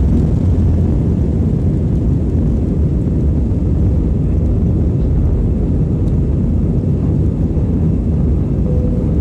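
Cabin noise of an Airbus A320 at takeoff thrust during liftoff and initial climb: a loud, steady, low jet rumble heard from inside the passenger cabin. The deepest part of the rumble eases slightly about half a second in.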